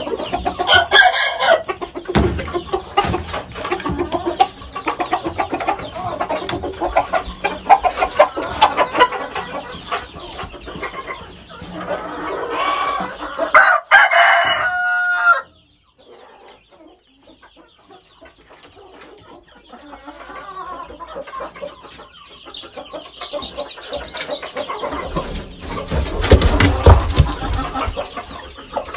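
Shamo and Aseel roosters clucking, with a drawn-out crow held on one pitch that stops abruptly about halfway through. A burst of loud low rumbling noise comes near the end.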